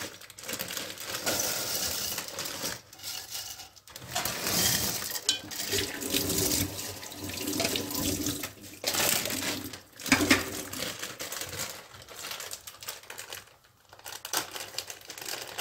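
Wet, half-boiled penne poured from a plastic bag into earthenware tagine pots and pressed down by hand: the pasta slides and squelches and the bag rustles, in several bursts with short pauses.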